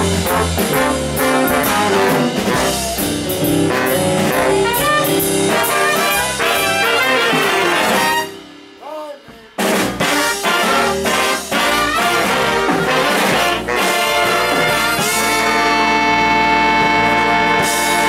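A jazz band with a saxophone section playing. The music drops out briefly about eight seconds in, then comes back and ends on a long held chord near the end.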